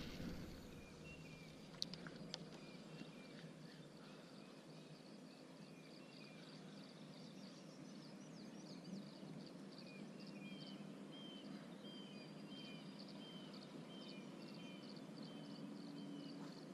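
Faint outdoor ambience: a steady low hiss with a small bird chirping over and over, short calls about twice a second from about ten seconds in. A single sharp click comes about two seconds in.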